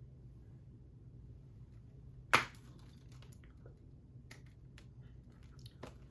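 Plastic Blu-ray case being handled: one loud sharp snap about two seconds in, then a few lighter clicks.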